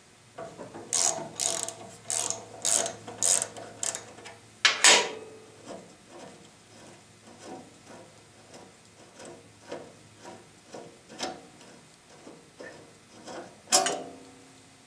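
Socket ratchet clicking in short strokes on the 17 mm bolt of a bandsaw's cast iron guide assembly, then a sharp metal knock about five seconds in. Fainter irregular clicks of metal tool and guide parts being handled follow, with another knock near the end.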